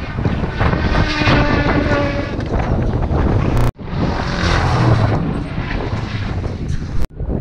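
Strong wind buffeting the microphone over a race car engine running hard up the hill. The sound cuts out abruptly about halfway through and again near the end.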